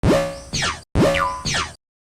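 Cartoon 'boing' sound effect played twice in quick succession, each lasting just under a second and starting with a fast rising twang, the second one cut off abruptly.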